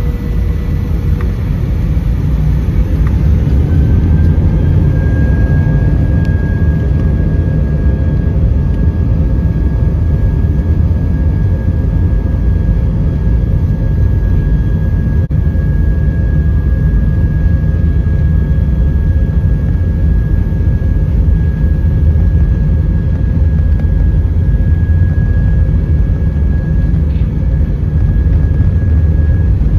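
Jet airliner cabin noise while taxiing, heard from inside: a steady low rumble of the engines and airframe, with a thin steady whine above it that rises slightly and grows a little louder about four seconds in.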